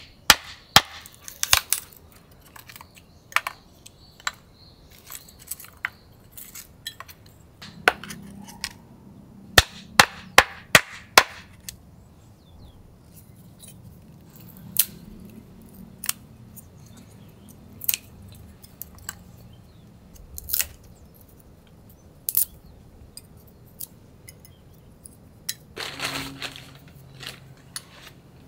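A knife splitting thin sticks of wood into kindling on a wooden board: sharp, irregular cracks and knocks, in quick runs near the start and about ten seconds in, then sparser. A short rustle near the end.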